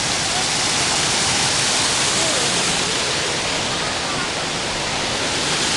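Fast-flowing mountain creek cascading over rocks in small waterfalls: a loud, steady rush of water.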